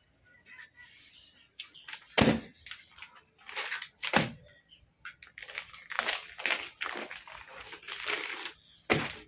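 Clear plastic packaging bag crinkling and crackling as it is handled, in a series of separate rustles, the loudest and sharpest about two seconds in.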